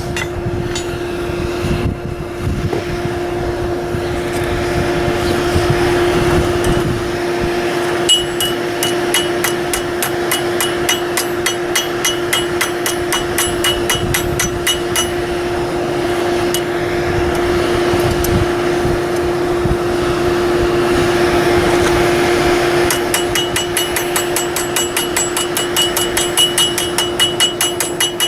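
Hammer blows on steel at an anvil, falling in a fast, even rhythm of about four to five a second, with a bright ring on each strike. They come in two runs: from about 8 s to 15 s in, and again from about 23 s in. A steady hum runs underneath.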